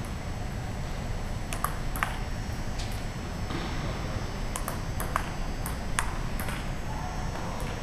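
Table tennis rally: the ping-pong ball clicking off the paddles and bouncing on the table, sharp clicks often in quick pairs, starting about a second and a half in and coming every half second or so, over a steady low hum.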